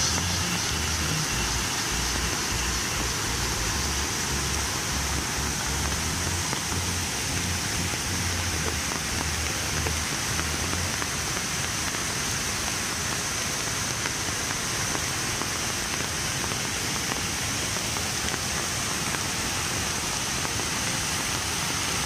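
Steady rushing of a waterfall and river rapids cascading over rocks, with an uneven low rumble underneath for about the first half.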